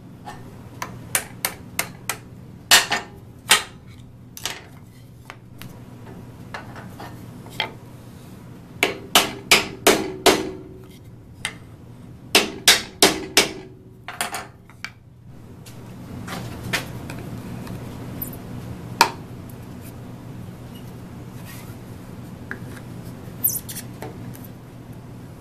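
Claw hammer tapping a plywood workpiece in several quick runs of sharp knocks. Later comes quieter handling, with a few isolated clicks as side cutters work at the part.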